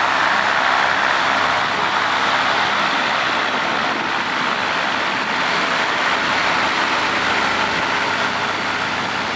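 Ultralight aircraft engine running steadily at close range, a loud even drone.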